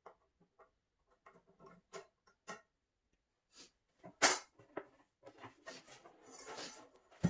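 Particleboard panels of a flat-pack IKEA Brimnes TV stand knocking and scraping as the partly assembled frame is gripped and tipped over. Light taps first, one sharp knock about four seconds in, then a stretch of scraping and rustling and another knock at the end.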